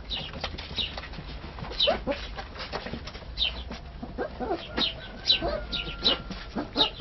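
Sloughi puppies squeaking and whimpering as they nurse: short, high, falling squeaks every second or so, joined by a few lower whines about two-thirds of the way through.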